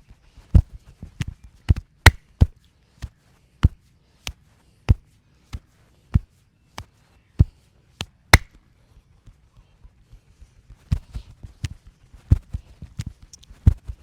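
Hands slapping and chopping on the body in a percussive massage: sharp slaps about one every half second or so, then a short lull and a quicker, uneven run of strikes near the end.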